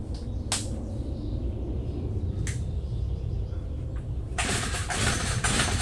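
Stihl FS90R string trimmer being pull-started: two sharp clicks a couple of seconds apart, then near the end a loud pull on the recoil starter lasting about a second and a half, all over a low steady rumble.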